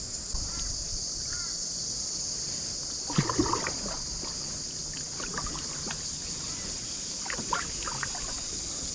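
Kayak paddle dipping and splashing in calm creek water, in three bunches of strokes about two seconds apart, over a steady high-pitched insect drone.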